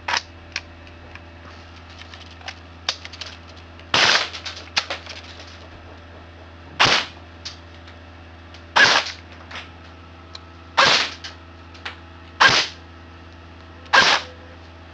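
Cyma CM.042S AK-47S airsoft electric gun, fitted with a 120 spring, firing single shots into a chronograph: about six sharp shots, roughly two seconds apart.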